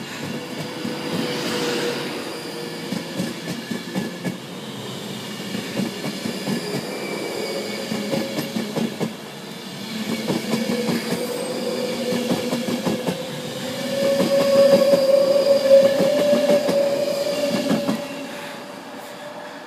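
Class 390 Pendolino electric train accelerating away from a platform, with an electric whine that rises slowly in pitch and wheels clicking over the rail joints. It is loudest as the end car passes near the end, then fades.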